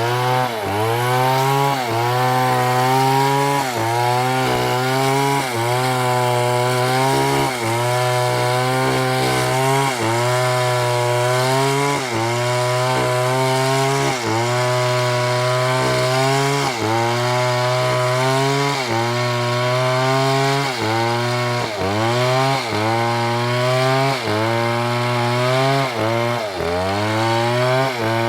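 STIHL MS720 two-stroke chainsaw cutting through wood under load. Its engine note sags briefly and climbs back every second or so as the bar bites and is eased in the cut, with the dips coming a little faster near the end.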